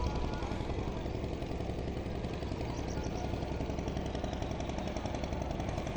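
Engine running steadily with a fast, even chatter.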